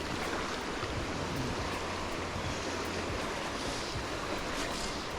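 Stream running high after rain, its water rushing in a steady, even hiss.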